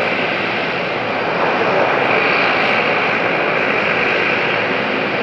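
Boeing 787-8's GEnx jet engines running at taxi power as the airliner taxis past: a steady loud rushing hum with a high whine that swells a little about two seconds in.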